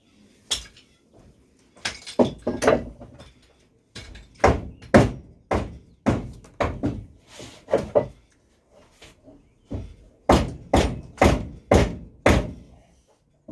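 A series of hard knocks, about twenty in all, coming in runs of roughly two a second with short pauses between runs.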